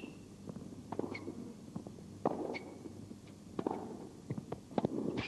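Tennis rally: rackets striking the ball about every second and a quarter, four or five hits in turn, with players' footsteps on the court between them.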